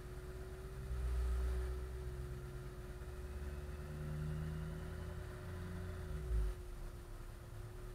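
1999 Ford F-350's 7.3 L Power Stroke V8 turbodiesel idling, with a steady whine under the low engine note and brief surges, about a second in and again after six seconds. The uneven idle is the hiccup that remains after the ICP sensor was replaced.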